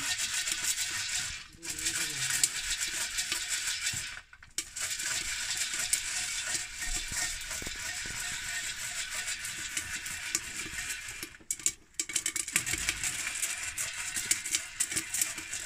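Dry maize kernels rattling in a pot as they are stirred while roasting over a wood fire for popcorn: a dense, continuous rattle that breaks off briefly three times.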